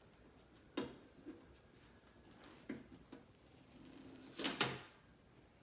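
Hand-handling noises while a replacement part is fitted into the TV's backlight panel: a few sharp clicks and knocks, then a louder brief rustling scrape near the end.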